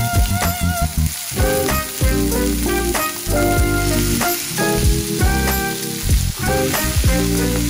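Food frying and sizzling in a pan, with short knocks of a utensil stirring it. Instrumental music plays underneath.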